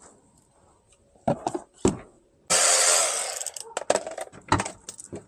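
A plastic cover and its fasteners being worked off by hand: a few sharp clicks and knocks, then a harsh scraping rasp about two and a half seconds in that lasts just over a second, then more clicks.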